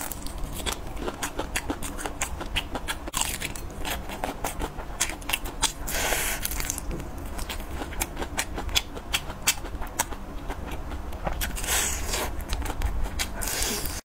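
Close-miked chewing of a grilled sausage: wet mouth clicks and crackling bites, with louder crunchy bites about six and twelve seconds in.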